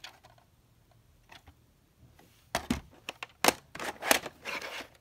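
Plastic VHS cassette shells being handled and stacked one on another: a run of sharp plastic clicks and clacks with short scraping rubs, starting about halfway through.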